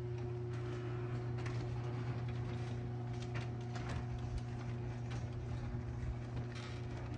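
Garage door being lowered by a LiftMaster 8365 Plus opener, with a steady mechanical hum and scattered knocks and rattles as the sections travel down. The door reaches the floor in the first few seconds.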